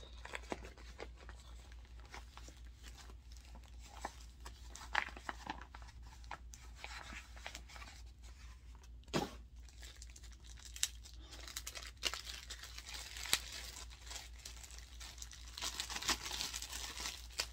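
Plastic packaging bag and padded paper mailer crinkling and tearing as an item is unwrapped by hand: irregular crackles and rustles, busier near the end.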